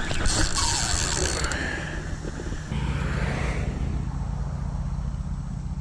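Fishing reel being cranked against a heavy hooked black drum, its gears and handle clicking and creaking. A steady low rumble of road traffic comes in about halfway.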